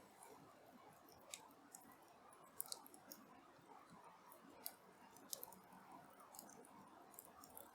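Faint, irregular small clicks over near silence.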